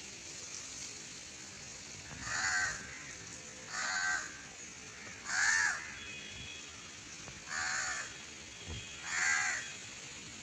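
A harsh bird call repeated five times, each about half a second long and roughly a second and a half apart.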